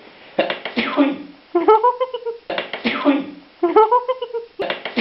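A person sneezing loudly over and over, about every two seconds: each sneeze is a rising drawn-in "ah" followed by a sharp explosive "choo".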